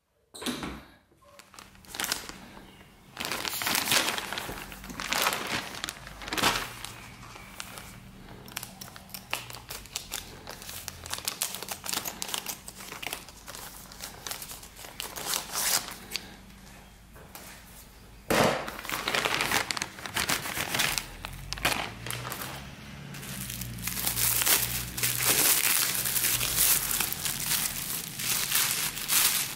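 Plastic postal satchel being cut open with scissors and bubble-wrap packing being handled, giving crinkling, rustling and sharp crackles throughout. The crinkling grows denser and louder near the end as the bubble wrap is unwrapped.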